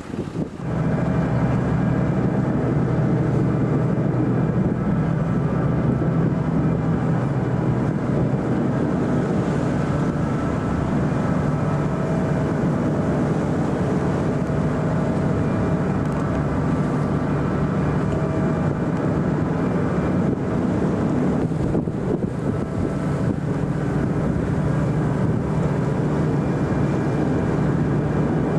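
Motor vehicle engine running at a steady speed, an unbroken pitched drone that sets in just after a brief dip at the start.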